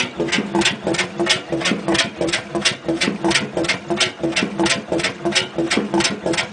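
Cooper-Bessemer GAW stationary diesel engine running steadily, a regular beat of sharp strokes about three a second.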